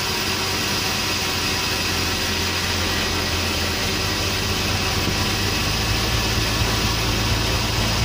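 Sawmill saw machinery running steadily: a constant motor drone under a wash of mechanical noise, with no break while timber is worked at the saw.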